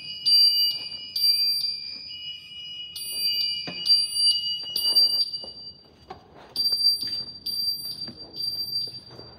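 Fire alarm system sounding after a detector is triggered in a test. A high beep pulses about two to three times a second in bursts of a couple of seconds with short gaps. Under it a steady, slightly lower tone runs and cuts off with a click a little under four seconds in.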